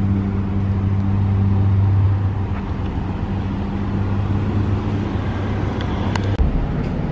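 A motor vehicle engine running steadily with a low hum over road noise. The hum stops abruptly about six seconds in, with a couple of sharp clicks and a thump.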